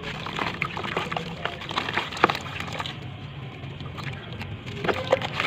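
Crisp crunching and crackling of dried brown sand chunks being crumbled, a dense run of small irregular snaps with one sharper crack about two seconds in.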